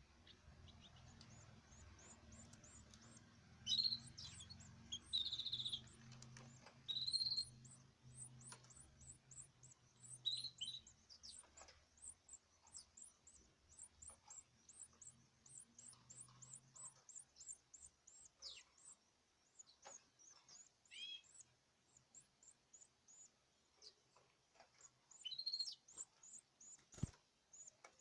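Caged birds calling: a long, even train of high, thin peeps, about three a second, with louder chirps breaking in a few times. A faint low hum stops about two-thirds of the way through.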